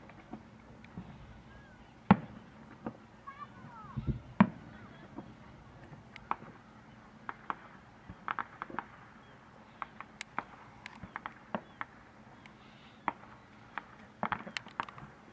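Distant fireworks: a few louder bangs in the first four or five seconds, then many small sharp pops and crackles, several a second.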